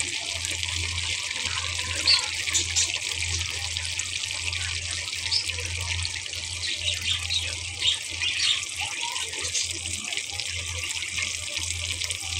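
Spice-coated fish pieces deep-frying in a pan of hot oil: a steady sizzle with scattered crackles and pops. A low hum runs underneath.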